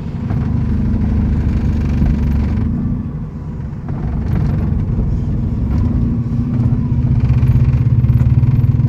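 An old Nissan car's engine running, heard from inside the cabin while driving slowly, easing off about three seconds in and then pulling harder with the sound building. It is running on gas with its gas tuning off, which the owner says makes it run choked and sluggish.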